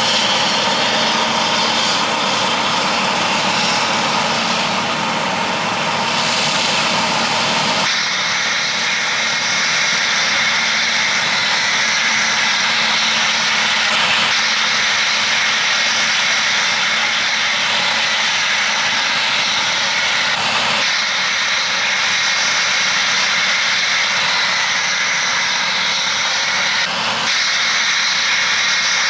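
John Deere 9870 STS Bullet Rotor combine running steadily while harvesting corn: a loud, even machine drone with a high whine over it, and no break in the sound.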